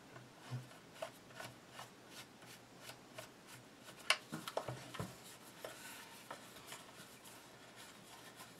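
Small clicks, taps and rubbing of a slotted screwdriver working against the rifle's butt plate, with a sharp click about four seconds in and a few knocks just after it.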